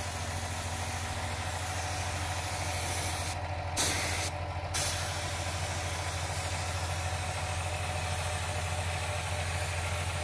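Air spray gun hissing as it sprays a glossy finish onto a carved wooden statue, over the steady hum of a small air compressor running. About three and a half seconds in the spray stops briefly twice, and each time it starts again with a sharp burst.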